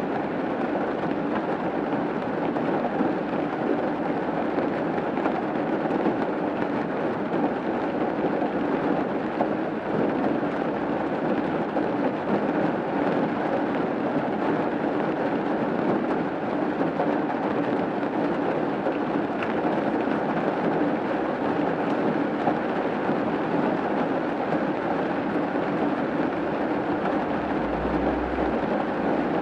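Steady rain falling on a roof, an even hiss that holds at one level throughout.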